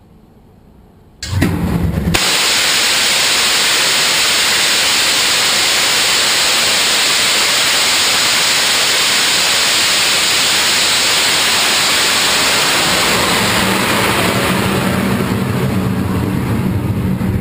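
Hybrid rocket motor hot fire: it ignites about a second in with a sudden low burst, then burns with a loud, steady rushing hiss. In the last few seconds the hiss thins and a lower rumble with a steady buzzing tone comes in as the burn begins to tail off.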